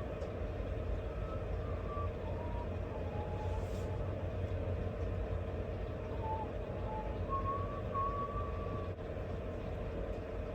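A steady low rumble with a constant drone, and faint short wavering tones above it that come and go every second or two.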